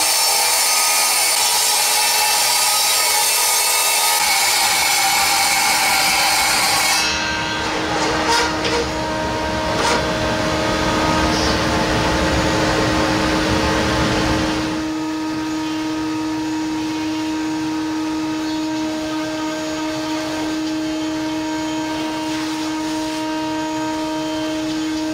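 Circular saw on a vertical panel saw cutting down through a thick sheet, loud and hissy for about seven seconds, then a lower rumbling until about halfway through. After that, a steadier machine hum with a few constant tones.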